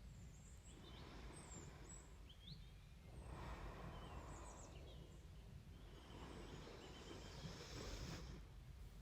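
Slow, soft breathing close to the microphone: each breath swells for a couple of seconds and fades, about every three seconds, over a faint steady low hum.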